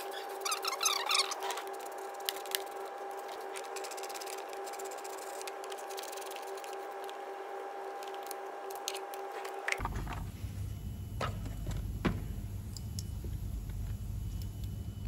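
Light clicks and rattles of a hand tool working the screws of a plastic air filter housing cover, over a steady hum that cuts off suddenly about ten seconds in. After that comes a low rumble with a few sharper clicks as the cover is lifted off.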